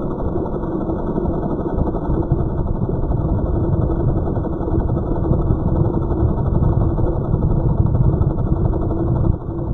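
Yuneec Q500 quadcopter hovering close by: a steady, muffled hum of its four propellers over a low rumble, dropping in level near the end.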